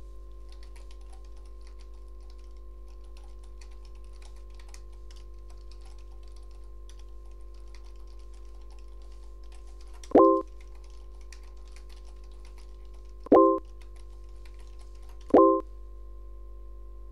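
Computer keyboard typing in quick light clicks, then three short, loud electronic tones, the second about three seconds after the first and the third two seconds later: chat-message alert sounds as messages are sent and received.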